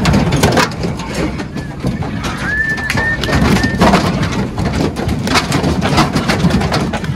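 Pigs moving about on a livestock truck: hooves clattering and knocking on the deck, with a few short high squeaks in the middle.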